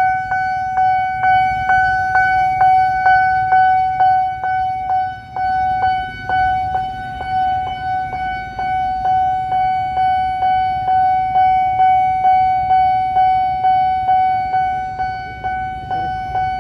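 Railway level-crossing warning bell sounding from the crossing signal's loudspeaker: a steady ringing tone struck over and over, about three times a second, over a low rumble.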